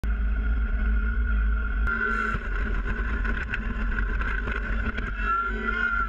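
Kubota BX compact tractor's diesel engine running steadily, picked up by a camera mounted on the loader arm, with a heavy low rumble, a steady high whine over it and a few short knocks and rattles.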